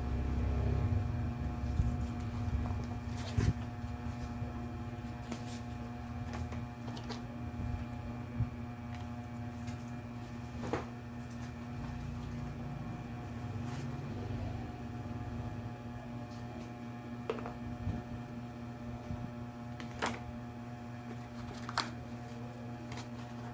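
Keyboard and packaging being handled during an unboxing: scattered sharp clicks and knocks a few seconds apart over a steady low hum.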